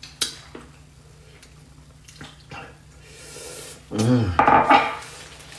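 Close-up eating sounds from a seafood boil: a few sharp clicks of shells or cutlery and wet, slurping noises. About four seconds in comes the loudest sound, a short pitched vocal sound lasting under a second.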